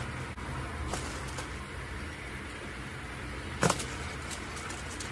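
Kitten moving about in a cardboard shoebox and tissue paper: a sharp knock and rustle of the box about three and a half seconds in, over a steady low background hum.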